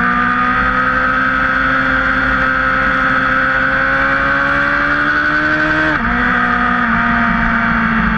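Sport bike engine under a steady throttle, revs climbing slowly, then dropping sharply about six seconds in at a gear change before it pulls on; heavy wind rush on the onboard microphone.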